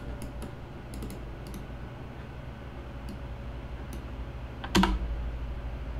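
Light clicks from a computer mouse and keyboard, a few in the first second and a half and another around four seconds in, then one much louder knock just before five seconds, over a steady low hum.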